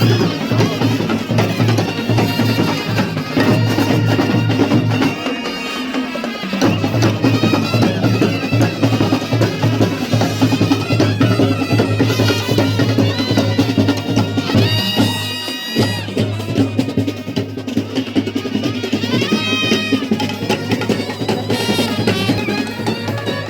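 Music driven by drums and percussion over a steady bass line, with the bass dropping out briefly about five seconds in.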